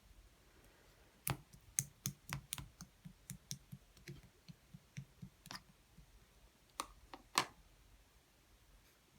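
Clear slime being squeezed and pressed by hand, giving a run of sharp, irregular clicks and small pops for about six seconds before it goes quiet.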